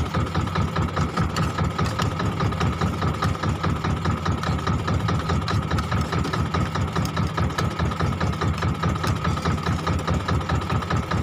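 Wooden fishing boat's engine running steadily, with a fast, even chugging pulse and a steady high whine over it.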